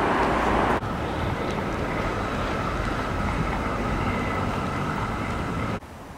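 Steady outdoor background noise of wind and distant traffic. It drops abruptly twice where clips are cut together, and a faint steady whine runs through the middle part.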